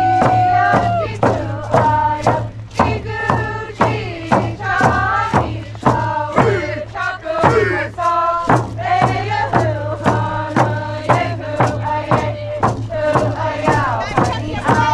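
A group of voices singing a chant together over a steady drum beat, a little over two beats a second, with a long held note at the start: an Alaska Native song greeting arriving canoes.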